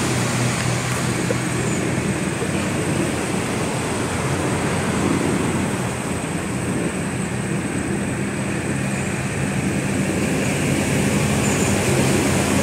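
Steady low engine-like drone under a constant outdoor hiss, unchanging throughout.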